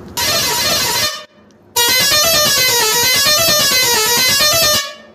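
A 12-volt six-pipe musical pressure horn sounding: a loud burst of about a second, a short break, then about three seconds of notes stepping up and down in a tune.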